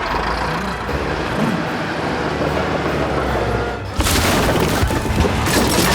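Cartoon action sound effects over background music: a steady, dense rushing rumble that jumps louder about four seconds in.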